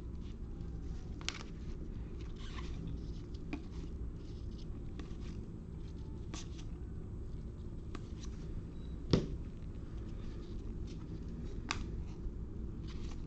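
Trading cards being handled: soft scattered clicks and rustles as cards are slid and flipped, with one louder thump about nine seconds in, over a steady low room hum.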